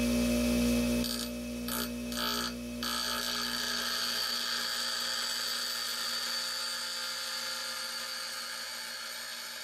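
Central Machinery 6-inch bench grinder running with its steady motor hum while a steel wood-lathe chisel is ground against the wheel, giving a grinding hiss. The grinding comes and goes briefly a second or two in, then holds steady.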